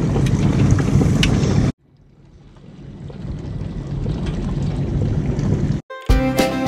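A steady rushing noise, with no clear source, cuts out about two seconds in and then fades back up. Bluegrass music with guitar and banjo starts near the end.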